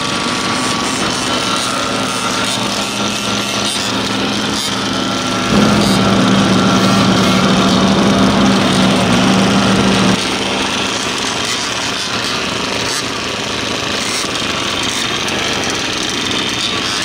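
Several large-scale gas-powered RC trucks and buggies running their small two-stroke engines with a steady, buzzy whine. From about five to about ten seconds in, one engine is much closer and louder, a steady drone.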